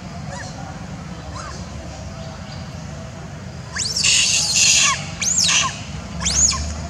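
Young long-tailed macaque giving distress screams: a couple of faint arched calls, then a loud, harsh scream of about a second near the middle, followed by two shorter screams that rise and fall in pitch. They are the screams of an orphaned young monkey calling for its mother after being harassed by other monkeys.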